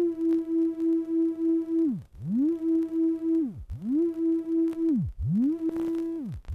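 Two electronic audio test tones at nearly the same pitch, beating against each other in a steady fast pulse. Four times, about every second and a half, the pitch dives away to a very low growl and glides straight back up as the right-channel tone is varied.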